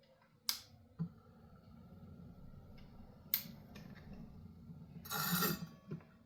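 A sharp click, then a knock about a second in, after which the lapidary's small motor hums steadily. Another click comes partway through, and a short loud hissing rush near the end.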